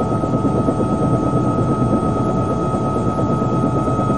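Steady engine and rotor noise of a helicopter, heard from on board, with a constant high whine over it.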